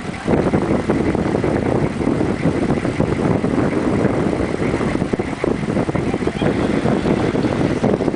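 Steady rushing noise of a fast-flowing glacial river, with wind buffeting the microphone.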